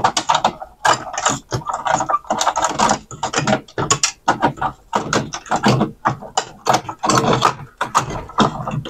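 Plastic parts and wiring being handled inside an opened CD changer as a cable connector is worked loose: a busy run of irregular clicks, rattles and scrapes.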